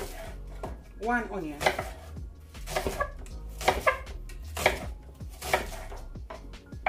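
Kitchen knife slicing a red onion on a wooden cutting board, the blade knocking on the board in separate strokes about once a second.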